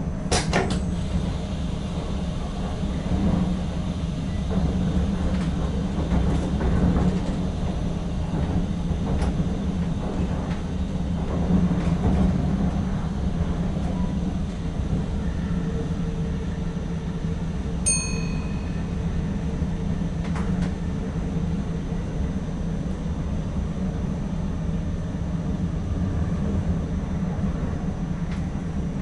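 Cab interior of an NS ICM "Koploper" electric multiple unit under way: a steady low rumble from the running gear with scattered clicks and knocks as the wheels cross rail joints and points. A short, high beep from the cab equipment sounds once about two-thirds of the way through.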